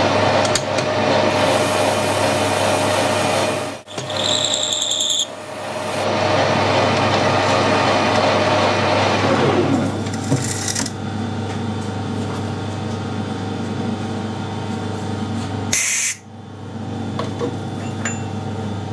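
Metal lathe taking a boring cut inside a bush: a steady cutting hiss over the hum of the lathe's motor and gearing. About ten seconds in the cut ends and the lathe runs on more quietly.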